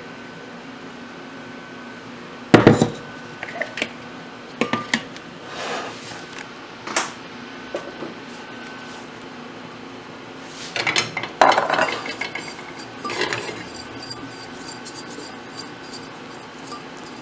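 Kitchenware handled on a counter: a glass blender jar, a plastic mixing bowl and utensils knocking and clinking at irregular intervals. The loudest knock comes about two and a half seconds in, and a quick run of clatter follows around eleven to twelve seconds in.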